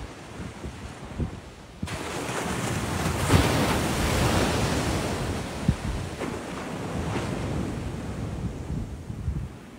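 Surf on a sandy beach: a wave crashes about two seconds in and its wash slowly fades. Wind buffets the microphone with low rumbles.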